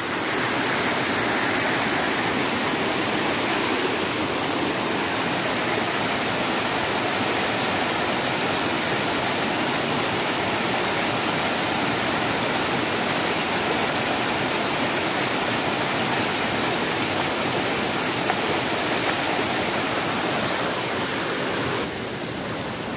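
A small waterfall splashing over rocks in a steady rush of water, dropping slightly in level near the end.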